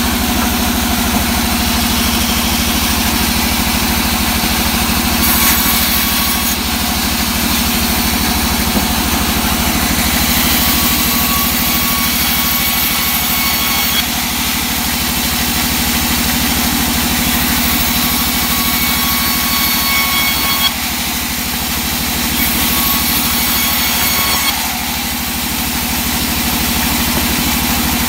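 Band saw running steadily while resawing old teak boards, with a constant machine hum. Several times the hiss of the blade cutting through the wood grows brighter for a few seconds, then drops back.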